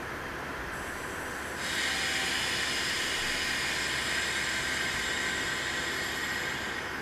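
Compressed air hissing from a standing 485 series electric train: a faint hiss starts under a second in, jumps to a loud steady hiss about a second and a half in, and stops shortly before the end, over the train's steady hum.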